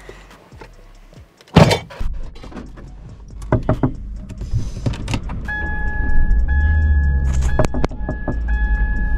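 A car door shuts with a sharp thump about a second and a half in, then a car engine runs with a low rumble that swells briefly near the end. From about halfway through, a steady high electronic tone sounds over it, broken by short gaps.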